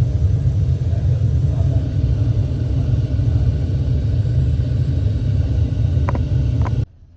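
Steady low rumble of road and engine noise inside a moving vehicle's cabin. There are two light clicks near the end, and then the sound cuts off abruptly.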